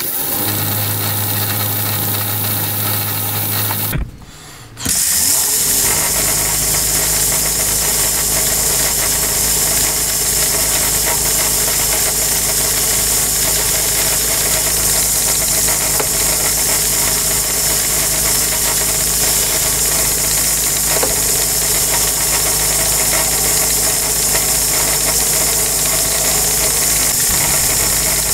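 Metal-working lathe running steadily while a spinning aluminium workpiece is drilled from a tailstock drill chuck. The sound dips briefly about four seconds in, then the steady running resumes with a strong high hiss on top.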